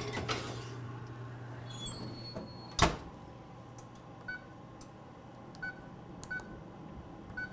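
Wall oven door shut with a single bang about three seconds in, after a brief squeak; a low hum stops as it closes. Then the oven's electronic control panel gives four short beeps as its keypad is pressed.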